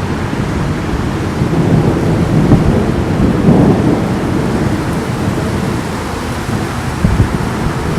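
Thunder rumbling over steady rain, the rumble swelling and fading in the middle. Two brief sharp thumps come near the end.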